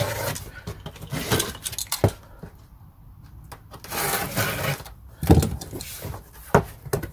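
Parts and packaging of a diesel heater kit being handled: rustling with several sharp knocks and clunks, the loudest about five seconds in.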